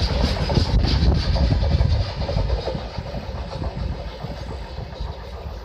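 Rear of a freight train of rail tank wagons rolling past on the track, the wheels rumbling and clicking. The sound fades steadily from about two seconds in as the last wagon moves away.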